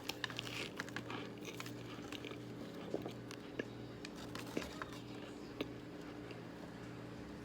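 Baked cornstarch chunks being bitten and crunched in the mouth: a quick run of crisp cracks at first, then single sharp crunches about once a second, over a steady low hum.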